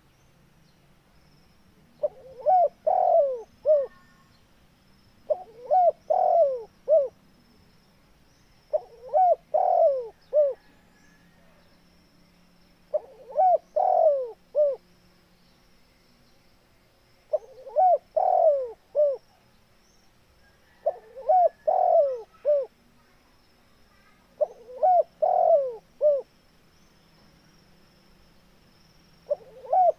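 Spotted dove (tekukur) singing its cooing song: a short phrase of several rolling coos, about four notes each time, repeated every three to four seconds, eight times in all.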